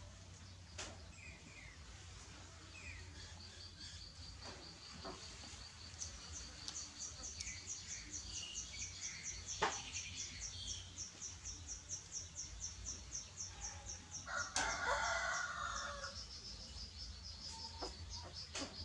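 A rooster crows once, briefly, about fifteen seconds in. Under it runs a fast, high-pitched pulsing chirp, repeating about four or five times a second through the middle, with a few sharp clicks.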